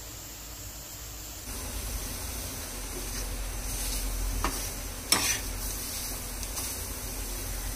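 Flat metal spatula stirring and scraping chopped onion, green chillies, garlic and coriander roasting on a hot metal tawa, starting about a second and a half in, over a light sizzle. Just after five seconds the spatula knocks sharply against the tawa.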